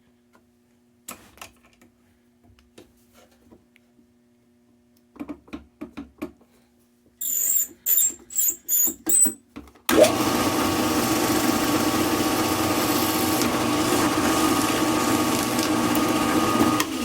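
Some handling knocks and a quick run of short, sharp bursts, then about ten seconds in a drill motor starts and runs at a steady speed.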